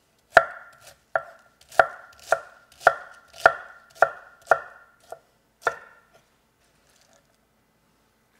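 Chef's knife chopping pieces of cabbage on a cutting board: about ten sharp chops, roughly two a second, each with a brief ringing knock from the board, stopping about six seconds in.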